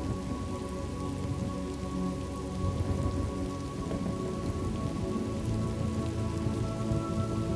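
Steady rain falling in a thunderstorm ambience, with a low thunder rumble that swells about three seconds in. Soft held tones run underneath.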